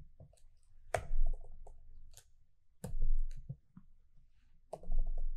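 Computer keyboard keystrokes clicking irregularly, with three heavier key knocks about one, three and five seconds in.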